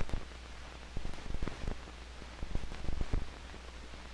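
Surface noise of an old 16mm optical film sound track between narration: a steady hiss and low hum, with irregular crackles and pops from dirt and wear on the track.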